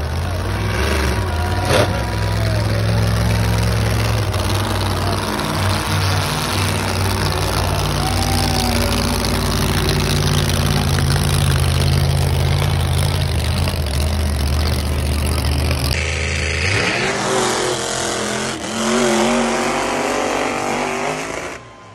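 Monster truck engines running loud, revving up and down, over the noise of the grandstand crowd. About three-quarters through the engine sound drops away, leaving crowd noise and voices.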